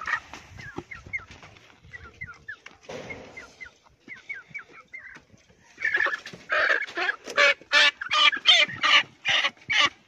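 Chicken squawking loudly in a rapid run of harsh calls, about two a second, starting about six seconds in: the distress squawk of a bird being grabbed and held. Before that, faint short high chirps.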